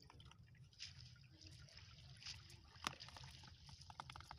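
Faint handling sounds of a fishing net being sorted by hand: small clicks and rustles, the sharpest click about three seconds in, over a low steady rumble.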